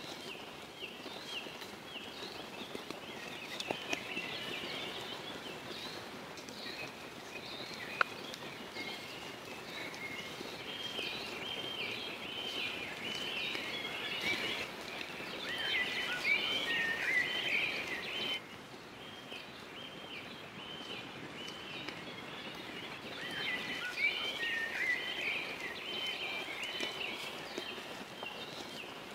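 Forest birds singing, with many short repeated notes from several birds at once. Under the birdsong come the occasional knock of a knife on a wooden cutting board as raw pork is cut, one sharp knock about eight seconds in.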